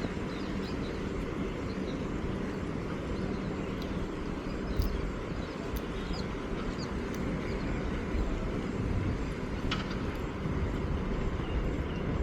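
Outdoor ambience: a steady low rumble with faint, short high chirps scattered through it and one brief click near the end.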